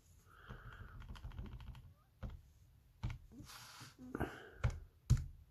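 Buttons of a Casio fx-82AU PLUS II scientific calculator being pressed: a quick run of small plastic key clicks about a second in, then single clicks spaced out after it.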